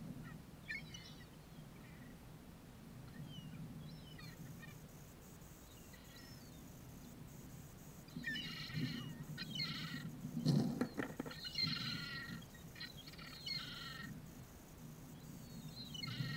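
Gulls calling overhead: scattered short calls at first, then a dense run of repeated calls through the middle, over a steady low rumble. A sudden thump a little past halfway is the loudest sound.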